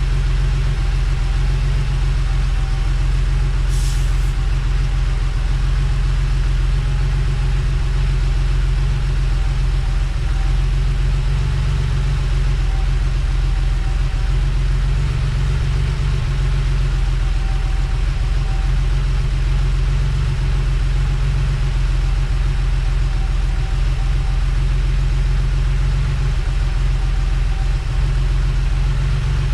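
Refrigerant vacuum pump running steadily as it pulls the car's air-conditioning system down to vacuum, a low, even drone. A brief hiss comes about four seconds in.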